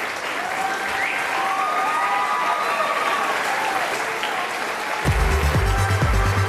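A large audience in a school hall applauding steadily. About five seconds in, electronic theme music with a heavy, regular bass beat starts over the clapping.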